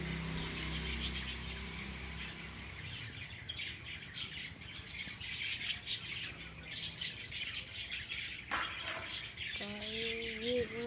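Small birds chirping in short, sharp calls again and again, over a low steady hum that fades out about two seconds in.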